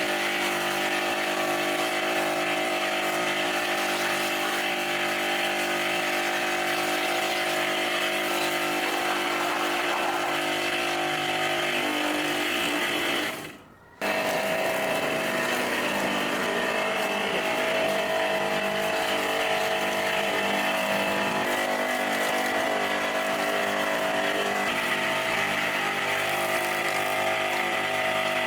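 A small high-speed power tool motor running steadily. Its sound dies away about halfway through, then comes back abruptly at full level.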